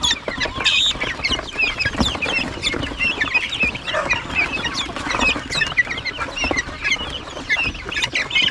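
A brood of young guinea fowl keets chirping constantly, many short overlapping calls at once: a noisy flock.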